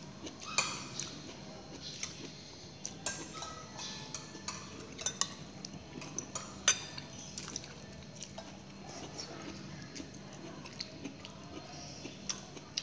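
Metal spoon clinking and scraping against a plate as it scoops rice and soup vegetables, in short irregular clicks, over a faint steady low hum.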